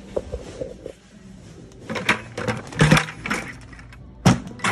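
Clattering and knocking from a metal shopping cart and the goods in it as it is pushed along a store aisle, with a sharp knock near the end.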